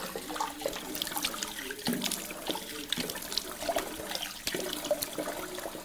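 Water running from a bathroom tap into the sink, with irregular splashing as water is cupped and splashed onto a lathered face to re-wet it for another razor pass.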